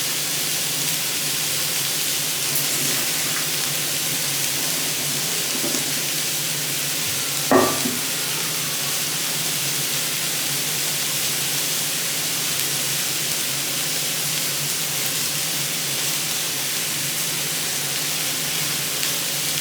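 Vegetables sizzling steadily in a hot pan, with one short clatter about seven and a half seconds in.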